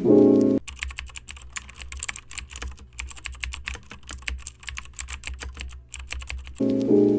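Rapid, irregular clicking of keyboard typing, lasting about six seconds, with piano music cutting out just before it and coming back just after.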